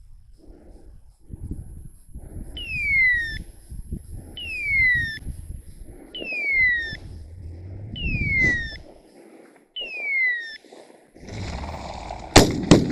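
A high whistle-like tone that falls in pitch, repeated five times about every two seconds over rustling footsteps in brush. Near the end comes a brief rushing noise, then two shotgun shots in quick succession, the loudest sounds.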